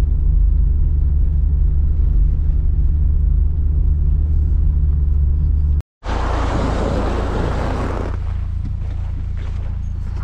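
UAZ Patriot driving, a steady low rumble of engine and road noise. About six seconds in it cuts out for a moment, then a loud rushing hiss lasts about two seconds before a quieter steady engine rumble.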